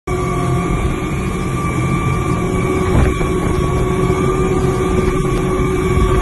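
Speedboat's outboard engines running at speed: a dense low rumble with a steady whine on top, mixed with rushing wind and water.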